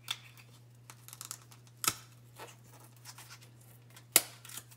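Scattered sharp clicks and taps of a spice container being handled and opened, with the loudest knocks about two seconds in and just after four seconds. A steady low hum runs underneath.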